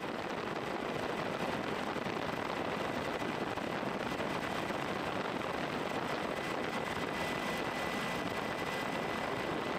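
Steady rushing noise of a helicopter in flight, with a faint, steady high-pitched whine.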